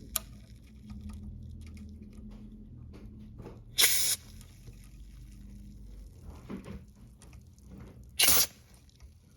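Aerosol contact cleaner sprayed in two short hisses, about four seconds apart, into the potentiometers of a Marshall MG30DFX amp to clean out the dirt that makes the volume knob crackle. Small clicks and handling noises come between the hisses.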